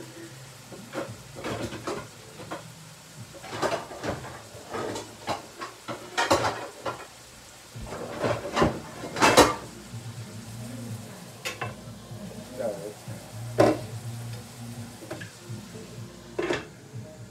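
Metal pots and pans clanking irregularly as they are pulled out and handled, the loudest clank about nine seconds in, over taco meat sizzling in a frying pan on the stove and a low steady hum.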